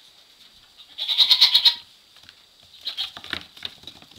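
Nigerian Dwarf goat kid bleating: one high, quavering bleat about a second in, then a shorter, quieter one about three seconds in.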